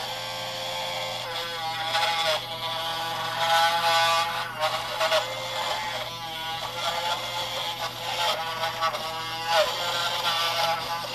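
Small battery-powered motor of a Crayola Crayon Carver running as its bit grinds into a crayon. Its whine wavers in pitch as the stylus traces the template.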